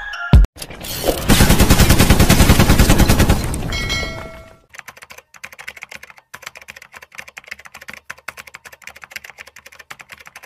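A loud, rapid rattling burst lasting about three seconds, then a quick run of light typewriter-key clicks, a typing sound effect laid over on-screen text being typed out.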